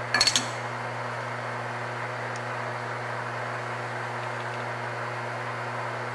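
Steady machine hum and hiss of a metal lathe in a machine shop, with a quick cluster of sharp metallic clicks just after the start and a few faint ticks later.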